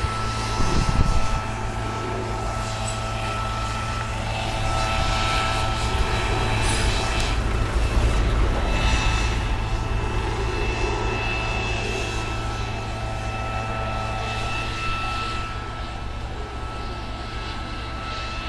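Steady engine drone with a constant whine, swelling a little in the middle and easing toward the end.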